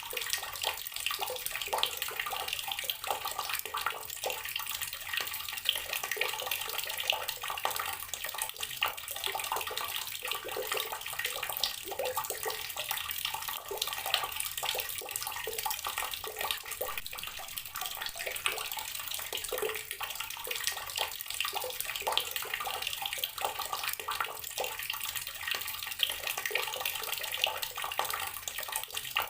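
Water from a tap pouring steadily into a filled container, splashing and bubbling without a break.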